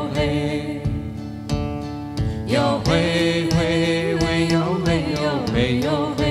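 Background song: a singing voice over a steady instrumental backing with a regular beat.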